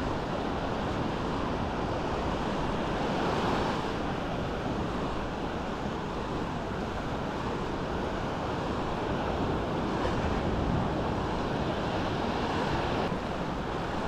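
Small Mediterranean waves washing onto a sandy beach, a steady rush that swells a little twice, with wind rumbling on the microphone.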